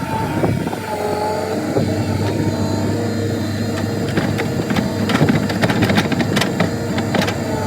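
A machine's engine running steadily with a wavering whine, and a run of clattering knocks in the second half.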